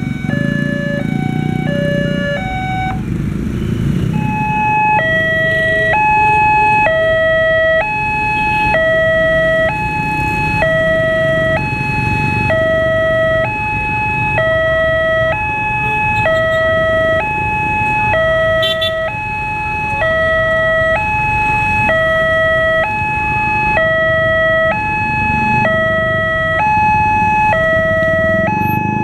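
Electronic railway level-crossing warning sirens, each a two-tone alternating alarm. For the first few seconds one siren switches quickly between two tones; about four seconds in a different siren takes over, alternating more slowly between two higher tones, each held about a second, and repeats steadily. A low rumble runs underneath.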